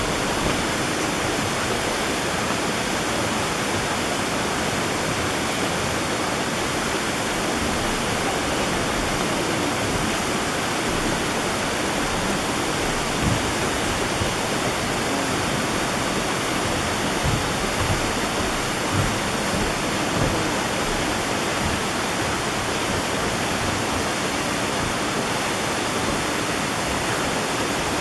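Waterfall partly frozen in winter, water pouring down past icicles and ice: a steady, even rush of falling water.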